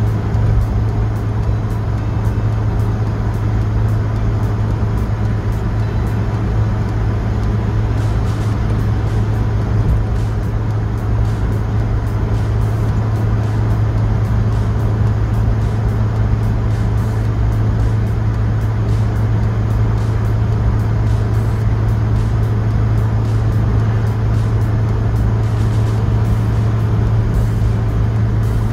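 Engine and road noise of a 1977 Vauxhall Cavalier Mk1, heard from inside the cabin while cruising at a steady speed: an even, deep drone that does not rise or fall.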